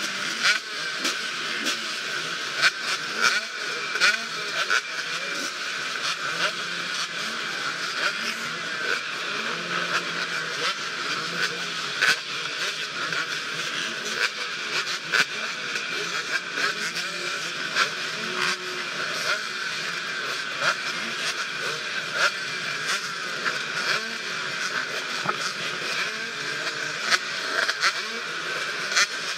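Honda XR400 single-cylinder four-stroke dirt bike engine running at varying revs, with a steady clatter of sharp clicks and knocks throughout.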